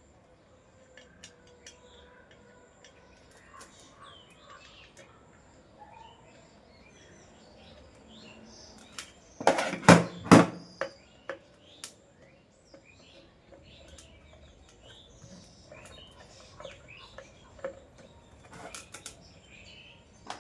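Small clicks and taps of screws and metal ceiling-fan motor parts being handled and fitted, with a quick run of several loud knocks about halfway through. Birds chirp faintly in the background.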